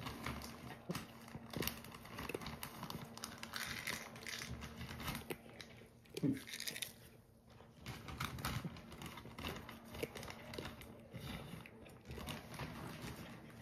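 A cat crunching dry kibble from a ceramic bowl: a steady run of small crackly crunches, with one louder knock about six seconds in.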